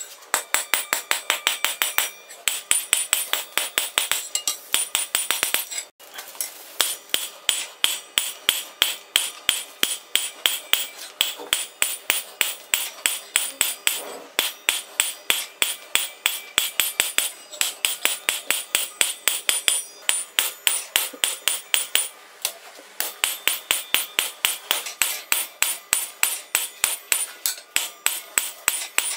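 Hammer blows on a piece of coil-spring steel on an anvil as it is forged toward a knife blade, about four sharp ringing metallic strikes a second in long runs with a few brief pauses.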